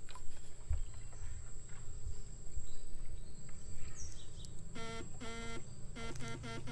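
Battery electrofishing rig (fish shocker) powering the probe pole in the water, giving a thin steady high whine. Near the end it buzzes in pulses, two longer buzzes then several short ones, as the current is switched on and off.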